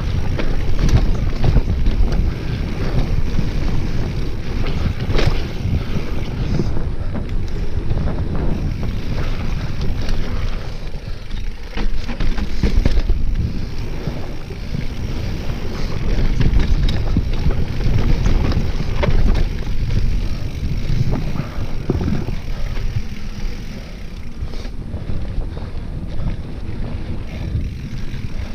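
Mountain bike riding down a dirt singletrack, tyres rolling on dirt with frequent rattles and knocks from the bike over bumps, under steady wind rushing on the camera's microphone.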